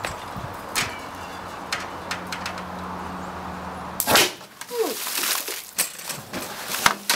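A steady low hum cuts off about four seconds in with a loud sharp crack, followed by scattered knocks and clatter. Near the end a sharp hit and splash as a man and the tall pipe of a homemade potato gun topple into an inflatable hot tub of water.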